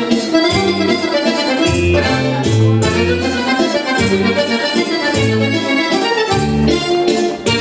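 Accordion-led folk dance music playing a mazurka in triple time, with a bass line moving in a regular pattern beneath the melody.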